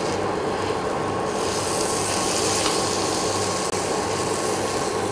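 Butter-coated bread rolls sizzling on a nonstick tawa, the hiss growing louder about a second in, while a knife scrapes against the pan as the rolls are turned to brown each side.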